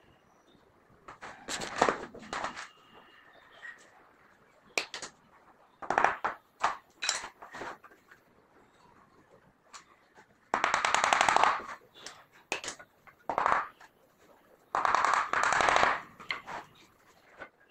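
Hand work on a small plywood box: wooden edging strips knocked and pressed against its rim in scattered sharp clicks and taps, with two rasping sounds of about a second and a half each, about ten and fifteen seconds in.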